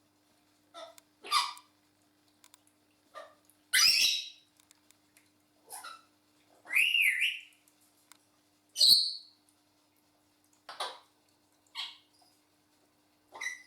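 African grey parrots calling: about ten short squawks and whistled notes, a second or two apart. The loudest are a harsh squawk and a whistle that slides up and down near the middle.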